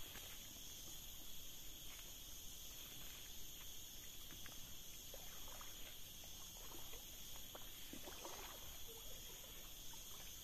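Faint, steady high-pitched drone of insects chirring, with scattered soft clicks and ticks.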